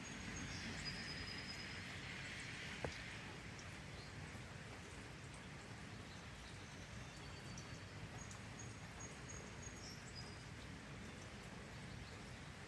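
Steady light rain falling, with songbirds chirping now and then in short high notes. A single sharp click about three seconds in.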